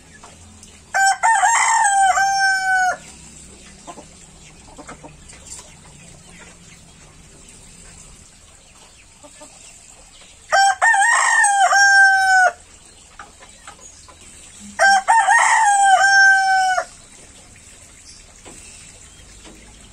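Rooster crowing three times, each crow about two seconds long and ending in a long held note: once about a second in, then again about ten seconds in and once more some four seconds later.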